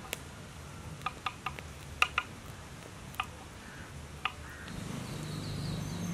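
Kitchen knife chopping on a wooden cutting board: a string of sharp, irregular taps. Near the end, a low steady hum comes in.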